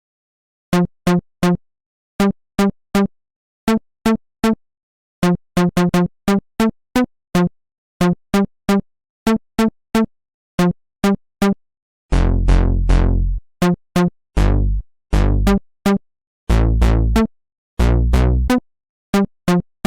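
Electronic ringtone tune: short, clipped synth notes repeated in quick groups of two to four with short gaps between. About twelve seconds in, longer notes with a deep bass join the pattern.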